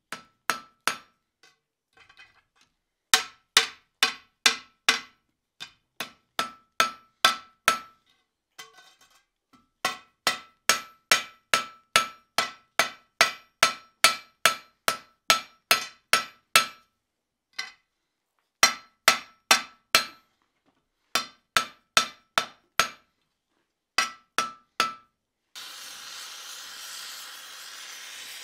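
Hand hammer striking red-hot iron on an anvil in runs of quick blows, about two to three a second, each with a short metallic ring, with pauses between runs. Near the end, a gas torch's steady hiss starts.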